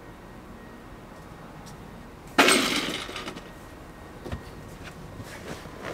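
One sudden loud clattering impact about two and a half seconds in, ringing briefly, followed by a few faint knocks.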